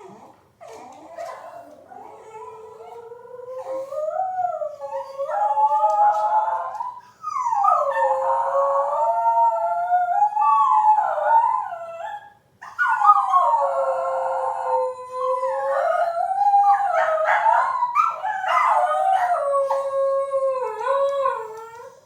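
Shetland sheepdog howling: long, wavering howls that rise and fall in pitch, dipping briefly about seven seconds in and breaking off for a moment about twelve and a half seconds in before going on.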